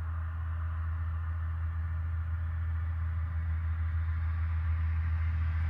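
A steady low hum with faint steady higher tones over it, growing slightly louder.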